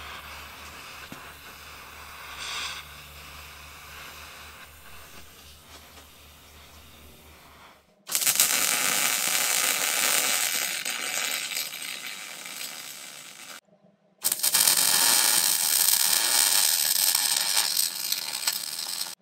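Low steady hum with a faint torch hiss for about eight seconds, then loud arc-welding crackle as the axle tube is welded to the Dana 60's preheated cast center section. The arc stops for about half a second a little past the middle, then starts again and runs to the end.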